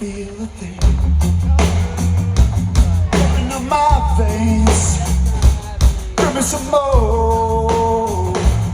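A live rock band playing loud, with drums, distorted guitar, bass and a sung vocal line. After a brief thinner moment, the full band comes back in just under a second in.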